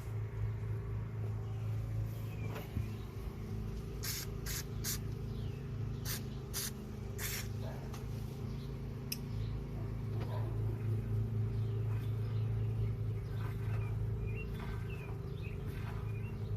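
A steady low hum throughout, with a quick series of about six short hissing sprays between about four and seven and a half seconds in.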